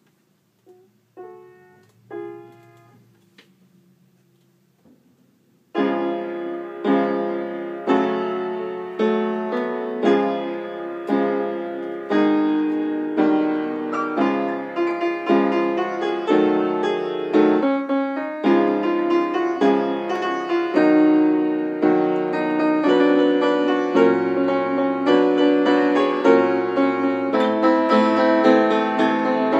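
Baldwin upright piano played by hand: a few soft, separate notes in the first five seconds, then from about six seconds a steady run of full chords struck in an even rhythm.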